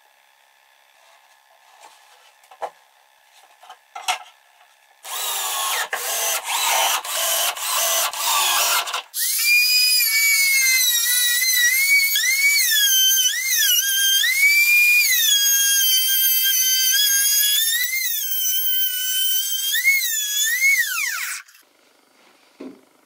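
Compact trim router running at high speed, its whine dipping and rising in pitch as the bit cuts, then falling as it spins down near the end. Before it come a few seconds of harsher, noisier power-tool sound broken by short pauses.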